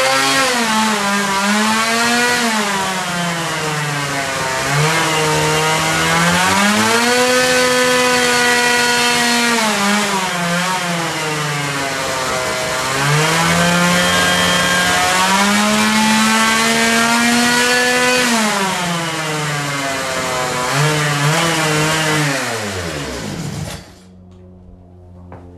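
Engine running and being revved: its pitch climbs and holds high several times, dropping back between revs. About 23 seconds in it winds down and stops.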